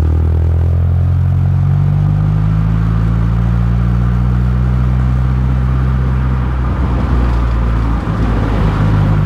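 Honda CR-Z Mugen RZ's four-cylinder engine and road noise heard from inside the cabin while driving: a steady low drone that wavers and briefly dips about eight seconds in, then settles again.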